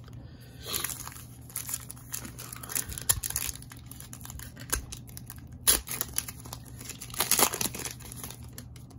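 Plastic cello wrapper of an Optic basketball card pack crinkling and tearing as it is opened, in irregular bursts, loudest about two-thirds of the way through and again near the end.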